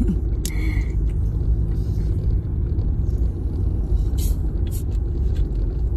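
Steady low rumble of a running car, heard from inside the cabin. A few brief hissy crackles come just after the start and again about four seconds in, as the plastic cap on a bottle of sparkling water is twisted.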